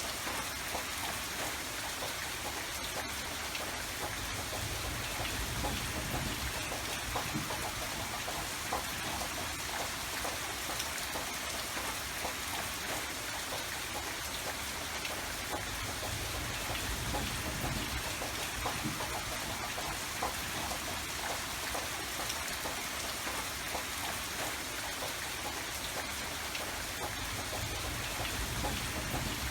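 Steady rain falling on a surface, dense small drops pattering without a break.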